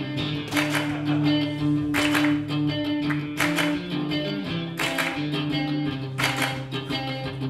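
Guitar music with a strummed chord about every one and a half seconds over held low notes.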